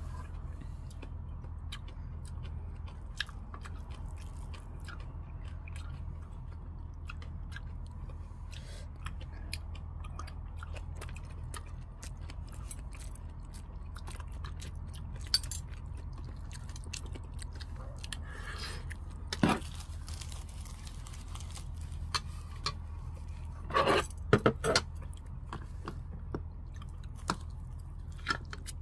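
A person chewing rice and side dishes, with light clicks of metal chopsticks and a spoon against bowls and containers. A few louder clinks stand out, a cluster of them about 24 seconds in, over a steady low hum.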